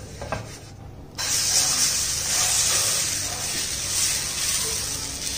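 Green gram (pasi payaru) dosa batter sizzling as it is poured and spread on a hot, lightly oiled frying pan. The sizzle starts suddenly about a second in and slowly dies down.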